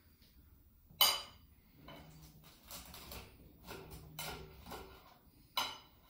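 A metal knife and cake server clink sharply against a ceramic plate twice, about a second in and near the end, with softer scraping in between as the serrated knife cuts through the chocolate-covered matzo cake.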